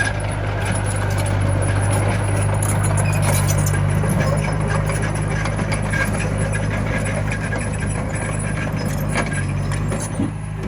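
Komatsu mini bulldozer's diesel engine running steadily, with scattered metallic clanks and clicks, typical of the tracks and blade working.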